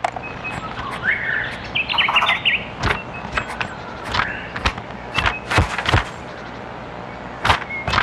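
Sound-effect nature ambience: small birds chirping during the first few seconds over a steady low background, with a scattering of short, soft taps and rustles, irregularly spaced, for a squirrel scampering and leaping.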